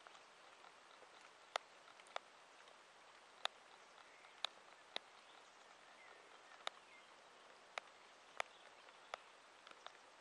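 Faint, quiet garden background hiss with about ten sharp ticks at irregular intervals.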